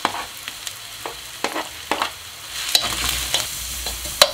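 Sliced leek dropped into hot oil in a wok with onion and garlic frying over medium heat, then stirred with a spatula. A run of light taps as the pieces land, then a steadier sizzle with stirring from about three seconds in, and one sharp knock of the spatula on the pan near the end.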